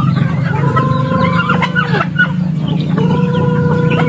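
A flock of chickens clucking at feeding time, with a rooster crowing twice in long held notes, about half a second in and again near the end. A low steady hum runs underneath.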